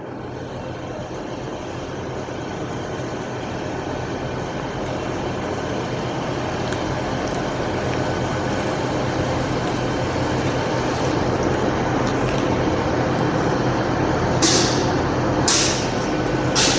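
A diesel train's engine runs steadily and grows gradually louder. Near the end come three short, sharp hisses of air.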